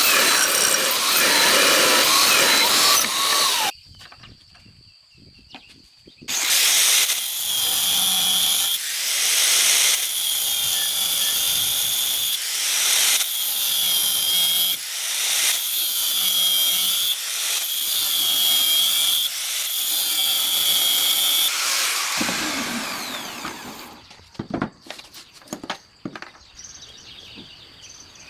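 Powered grinder sharpening a forged knife blade: steady grinding noise with a high ringing tone, stopping briefly about four seconds in, then resuming as a run of repeated passes of the blade. Near the end the machine winds down, falling in pitch, and a few light clicks follow.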